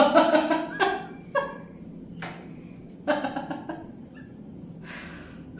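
A woman laughing loudly on purpose, in exaggerated bouts: one at the start and another about three seconds in.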